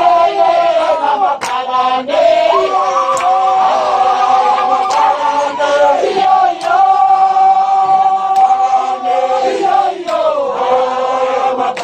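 A group of voices singing together in chant-like fashion, holding long notes and sliding between them, with a few scattered sharp claps or knocks.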